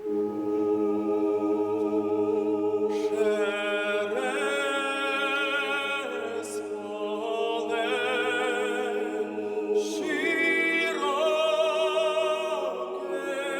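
Unaccompanied choral singing: a low chord held throughout, with higher voices and a wavering vibrato line coming in about three seconds in.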